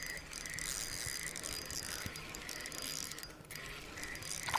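Fishing reel being cranked: a steady fine clicking from its gears, with a faint pulse about twice a second, as a catch is reeled in.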